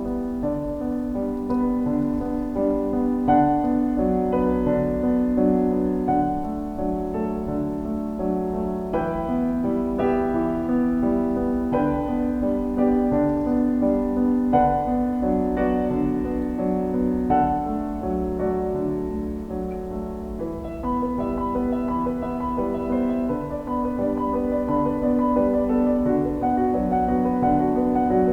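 Background piano music, slow and gentle, with sustained notes.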